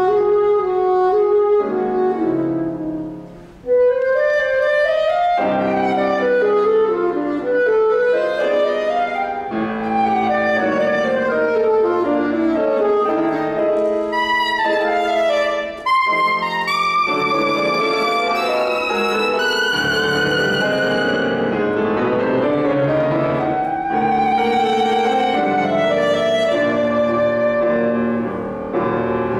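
Classical saxophone with piano accompaniment, the saxophone playing sustained notes with vibrato over moving piano chords. The music briefly drops away about three and a half seconds in, then comes back in strongly.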